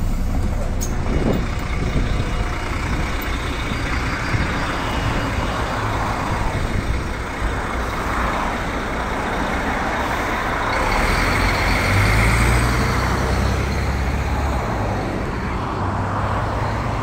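Solaris Urbino 15 III city bus's diesel engine running at a standstill, a steady low rumble that grows louder about twelve seconds in, with traffic passing.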